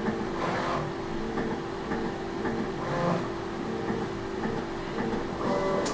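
A machine's motor humming, with steady tones that shift in steps and segments that switch on and off. A sharp click comes near the end.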